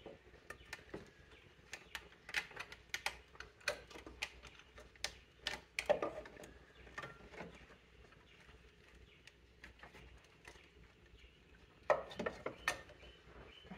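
Scattered clicks, taps and rustling from hands working hoses and fittings loose in a car's engine bay, coming in short clusters, with the loudest knocks about six seconds in and again near the end.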